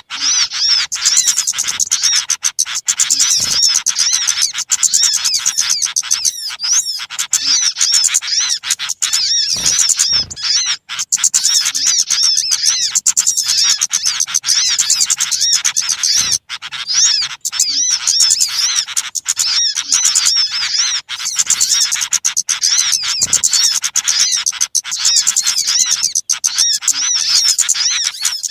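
Many small birds chirping and twittering at once in a dense, unbroken, high-pitched chorus of rapid overlapping calls: a noisy small-bird lure recording (suara pikat) used to draw in small birds.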